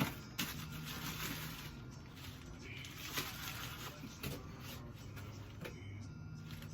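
Scattered light clicks and knocks of small HVAC parts and control boards being handled and set down, over a low steady hum.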